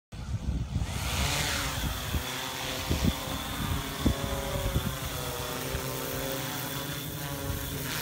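Yuneec Q500 quadcopter's four rotors whining steadily as it lifts off and climbs. Strong gusty wind buffets the microphone in an uneven low rumble, with several sharp thumps a few seconds in.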